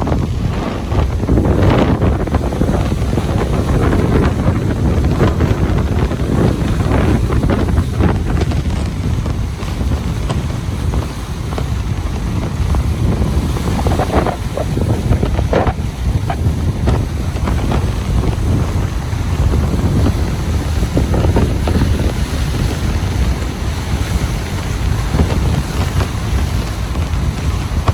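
Ocean waves washing onto a beach, a steady loud rush of surf, with wind buffeting the microphone as a low rumble.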